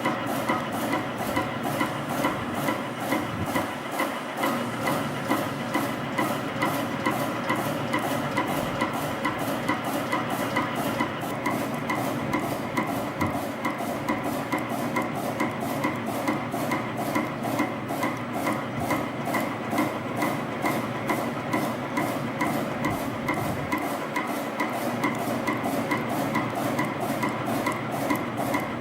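CNC spring coiling machine running steadily while forming small compression springs from 0.15 mm wire: a continuous mechanical whir with a fast, even ticking about three times a second.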